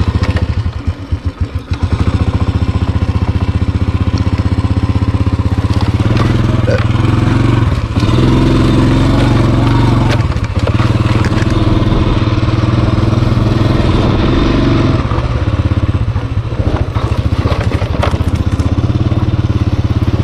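Small Honda motorcycle engine starting, firing unevenly for a couple of seconds, then running steadily as the bike rides along a rough dirt trail, with more throttle from about six seconds in.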